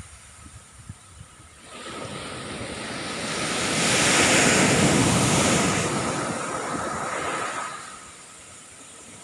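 A big ocean wave breaking and washing up the beach. The surf swells from about two seconds in, is loudest around four to five seconds, and dies away near the end.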